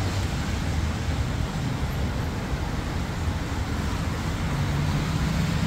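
Steady low rumble of road traffic, with a low engine hum coming up near the end.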